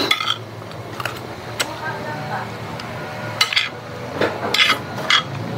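Metal spoon clinking against a glass bowl and plate while eating, about half a dozen separate clinks spread irregularly.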